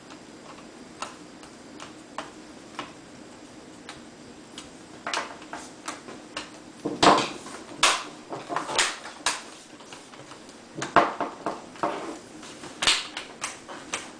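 Small irregular clicks and taps of a small Phillips screwdriver and screw against a laptop's plastic screen bezel as a bezel screw is driven back in. The clicks come in clusters, loudest about seven and eleven seconds in.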